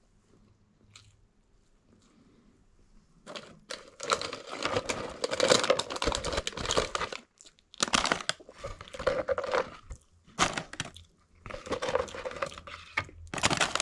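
Paper fast-food packaging rustling and crinkling as hands dig into a plastic bucket and pull out a fries carton. It comes in loud bursts with short pauses, starting about three seconds in.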